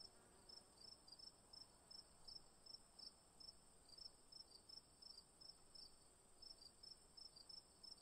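Near silence, with faint high-pitched chirping repeating about three times a second over a faint steady high whine.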